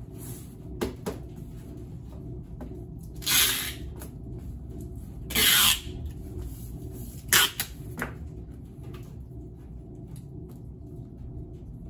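Packing tape pulled off a tape gun across a parcel: two loud tearing bursts of about half a second each, then a sharp snap, with a few small knocks around them.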